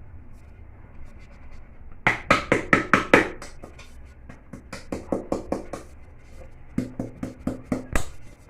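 Quick runs of sharp knocks as a flour-dusted, greased sufuria is tapped and shaken to spread the flour over its inside. The knocking starts about two seconds in and comes in three bursts.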